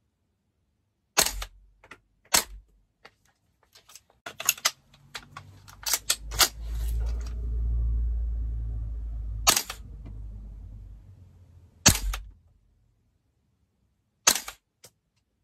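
Sharp clicks and knocks from a rifle scope and its fittings being handled, about half a dozen loud ones spaced a second or more apart. A low rumbling handling noise runs from about four to ten seconds in.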